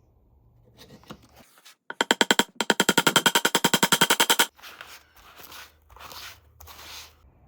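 A rapid mechanical rattle of sharp clicks, about a dozen a second, lasting about two and a half seconds, followed by a few softer scraping sounds.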